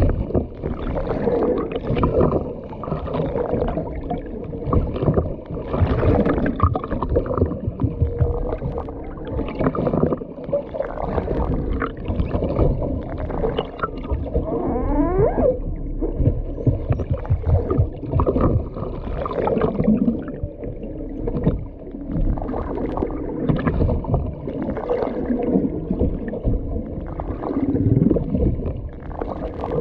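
Humpback whale song heard underwater: a continuous run of moans, grunts and pitch glides, with a clear sweeping call about halfway through, over a steady low hum.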